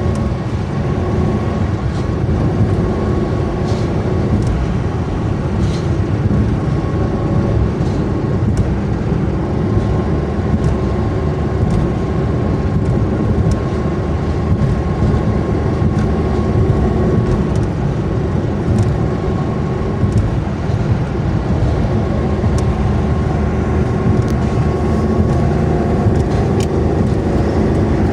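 Daewoo Matiz running at road speed on the highway: steady engine and tyre noise.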